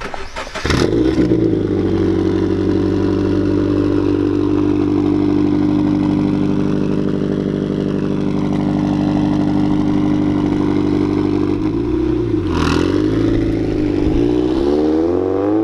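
Toyota 86's flat-four engine running steadily through its exhaust, then rising and falling in revs over the last few seconds.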